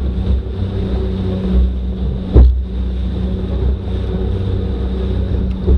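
Motorboat engine running at a steady pitch while under way, with wind on the microphone. A loud thump about two and a half seconds in, and a smaller one near the end.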